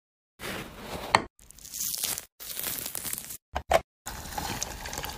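Orange peel being torn off a jelly orange in several short, hard-cut snippets of crackly tearing, with a sharp snap about a second in. Near the end the peeled orange is pressed in a hand juicer.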